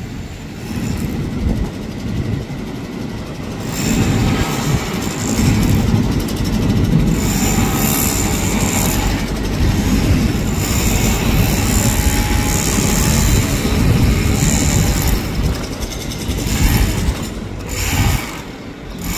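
Ex-JR 205 series electric commuter train approaching slowly over curved pointwork, a steady rumble that grows louder about four seconds in, with thin high-pitched tones over it.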